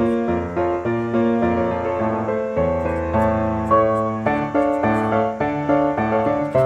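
Background music: a light piano-like keyboard tune playing a steady run of notes.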